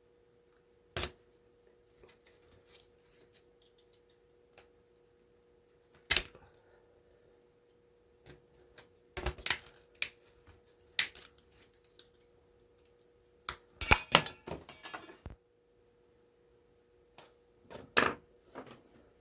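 Scattered clicks and knocks of tools and small metal and plastic scrap parts being handled and set down on a work surface, with a longer clattering rattle about two thirds of the way through, over a faint steady hum.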